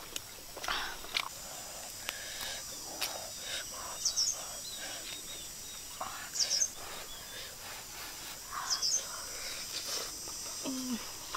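A bird chirping again and again, a short call about every two seconds, over a steady high hum of outdoor background, with soft close eating noises in between.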